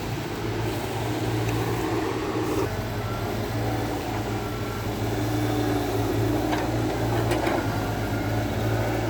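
Diesel engine of heavy earthmoving machinery running steadily at an even, low pitch.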